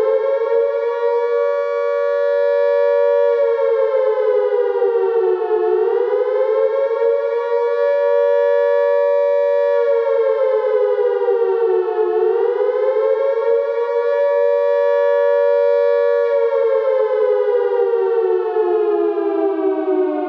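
Air raid siren wailing, its pitch rising, holding level and then sliding down in slow cycles about six seconds long, three rises in all. Near the end it winds down steadily.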